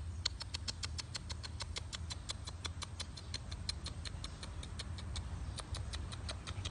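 A fluffy puppy's paws pattering on paving as it trots: a rapid, even run of light clicks, about five a second, with a short break about five seconds in. A low steady rumble lies underneath.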